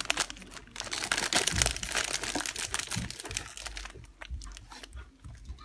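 Plastic snack packaging crinkling as it is handled, in dense crackles that thin out after about four seconds.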